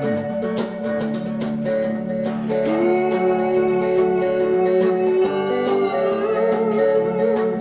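A song played on strummed acoustic guitar, with a singer holding one long note from about three seconds in.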